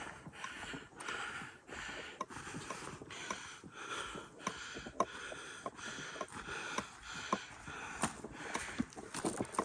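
Footsteps crunching on a gravel and dry-leaf path at a steady walking pace, about one or two steps a second, with small crackles of leaves and grit underfoot and the walker's breathing close to the microphone.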